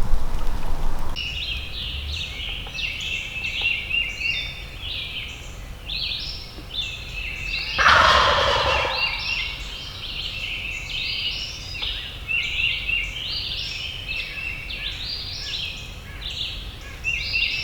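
A wild turkey gobbler gobbles once, loudly, about eight seconds in. Small birds chirp continuously from about a second in.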